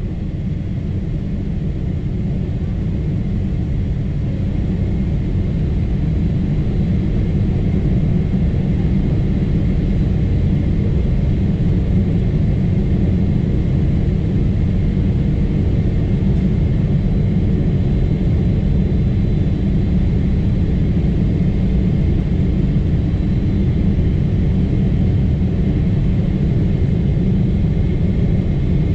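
Cabin noise inside a Boeing 777-300ER in flight: a steady, loud low rumble of engines and airflow with a faint high hum, swelling slightly over the first few seconds.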